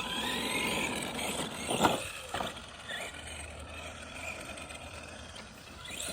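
Arma Granite Boost RC truck driving on its brushed 550 motor: motor and gear whine rising in pitch in the first second, a sharp knock about two seconds in, then quieter running. The drivetrain sounds dry, which the driver takes for no grease in the diff.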